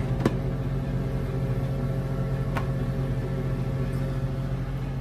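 Kitchen range hood fan humming steadily. A glass pot lid clinks onto a pan just after the start, and another light click comes about two and a half seconds in.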